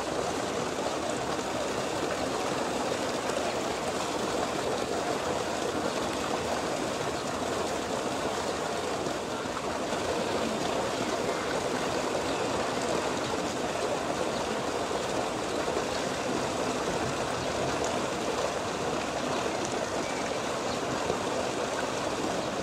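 Steady rushing of flowing water, an even noise that holds at one level throughout.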